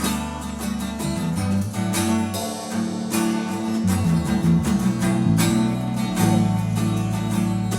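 A three-piece band playing: strummed guitar, bass guitar holding low notes, and a drum kit keeping a steady beat.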